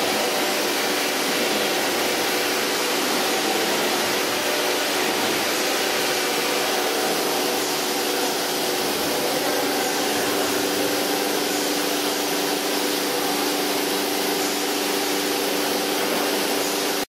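PTP CNC machining centre for furniture panels running: a steady whir and hiss with several steady hums underneath, without separate cutting strokes. It cuts off abruptly at the end.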